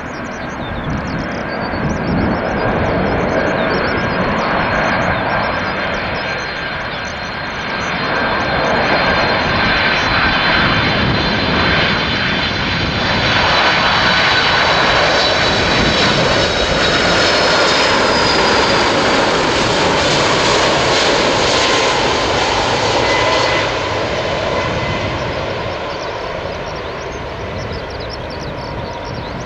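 Boeing 747-400's four jet engines on final approach: a steady jet rumble with a high fan whine, growing louder as the jumbo jet comes close. A whine slides down in pitch as it passes, and the sound eases off somewhat near the end.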